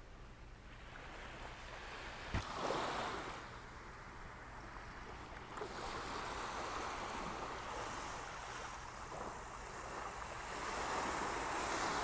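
Small waves breaking and washing up onto a sandy beach, the wash swelling and easing several times. One sharp click about two and a half seconds in.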